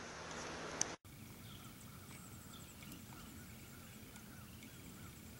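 For the first second a steady rustling hiss with one sharp click, cut off abruptly. Then faint bird calls over a low hiss: short chirps every second or so and a quick, high ticking trill.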